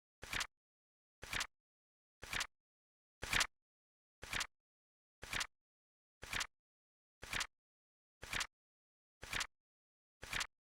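Flip clock sound effect: a short, sharp flap-and-click once a second as the card flips, with dead silence between the clicks.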